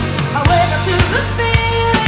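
Background pop music with a steady beat of about two beats a second.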